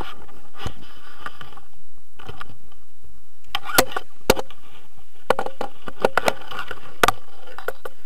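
Handling noise on an action camera: scraping and rustling with a scatter of sharp clicks and knocks, most of them in the second half, as a paraglider's wing and lines are gathered in after landing.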